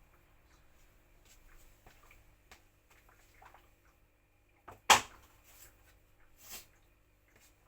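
Scattered small clicks, with one sharp knock about five seconds in and a softer knock about a second and a half later.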